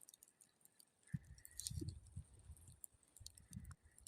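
Small wood campfire crackling faintly, with scattered small pops and clicks, and a few low wind rumbles on the microphone.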